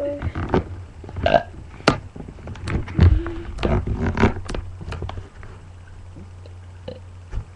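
A person burping, with one drawn-out pitched burp about three seconds in among shorter sounds. It goes quieter after about five seconds.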